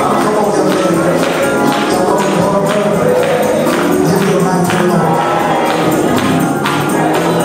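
Gospel praise music with a tambourine struck on a steady beat over pitched instruments or voices.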